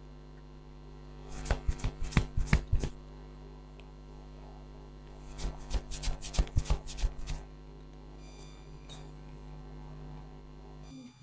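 Two quick runs of sharp hand slaps from a percussive head massage, about six strikes a second, the first run starting about a second and a half in and the second about five and a half seconds in, over a steady electrical hum.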